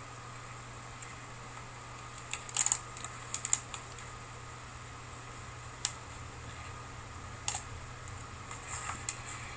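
Scattered clicks from computer controls: quick little clusters about two and a half to three and a half seconds in, one sharp click near six seconds, and more around seven and a half and nine seconds, over a steady low hum.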